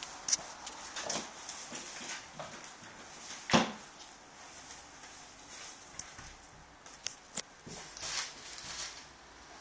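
A kitten clambering up a sheer window curtain: scattered rustles of the fabric and small scratchy clicks of claws catching in it, with one louder thump about three and a half seconds in.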